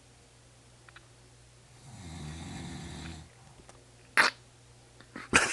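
A sleeping person snoring: one snore lasting over a second, about two seconds in. Near the end come two short, loud, sharp sounds.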